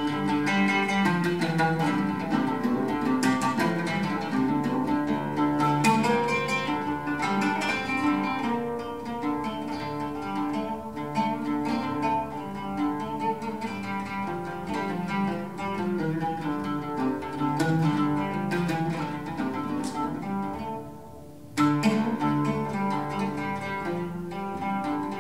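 Oud and piano duet, the oud plucked in quick, dense note runs over held lower tones. Near the end the music falls away for about a second, then comes back strongly.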